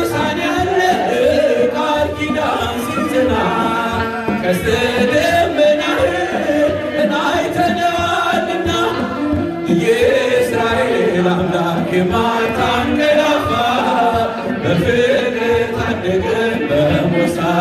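Ethiopian Orthodox mezmur: a group of voices singing a hymn together over the steady beat of a kebero, the large double-headed church drum.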